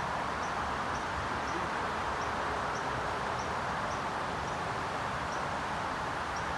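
Steady outdoor ambience: an even rushing hiss, with a faint high chirp repeating about every half second.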